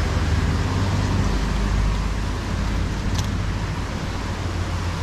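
Steady rumble of road traffic with a low hum, and a faint short tick about three seconds in.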